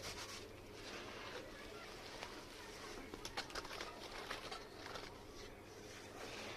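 Crumbling red sand or clay, with a short run of crisp crunching cracks a little past halfway and small scattered crackles, over a faint steady hum.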